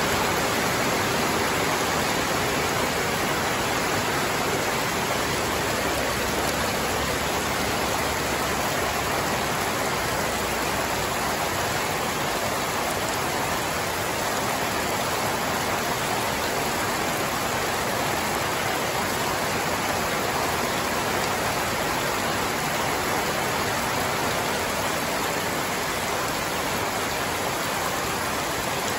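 Heavy rain pouring steadily, a dense even hiss with no letup.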